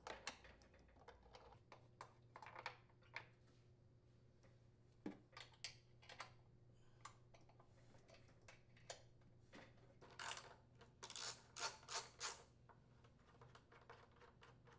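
Faint, irregular clicks and taps of a socket tool working the blower housing mounting bolts on a Briggs & Stratton small engine, with a quicker run of clicks about ten seconds in.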